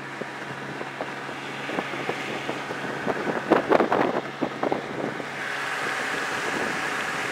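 Small boat's outboard motor running steadily under water rush and wind on the microphone, with a cluster of knocks about three and a half to four and a half seconds in. From about five and a half seconds the rush of water and spray grows louder as the boat planes.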